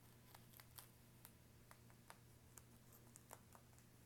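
Near silence over a faint steady low hum, with scattered faint ticks and scratches of a pen marking guidelines on a wig cap's lace and mesh.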